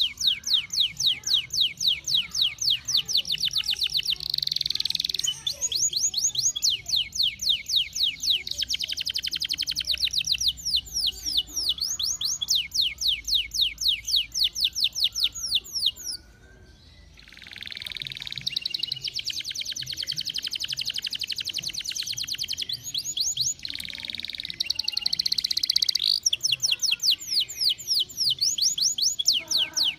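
Domestic canary singing a long, continuous song of fast trills, each a run of rapidly repeated sweeping notes. It breaks off briefly a little past halfway, then goes on.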